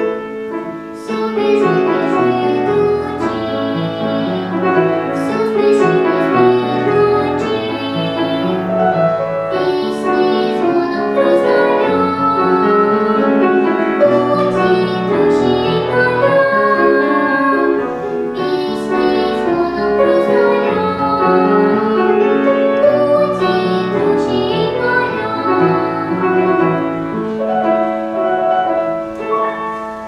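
A young girl singing a song with grand piano accompaniment.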